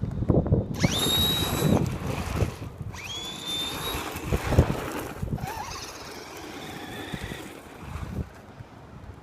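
RC car's motor whining sharply up in pitch and holding as the car accelerates, twice: about a second in and again near three seconds. Wind noise on the microphone runs underneath.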